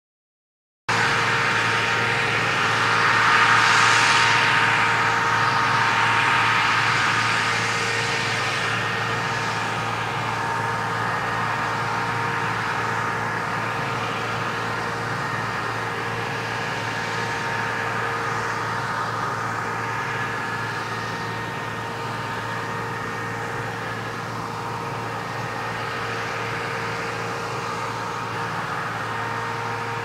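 A combine harvester running steadily at work, a constant machine hum with a hiss over it. It starts abruptly about a second in and eases slightly toward the end.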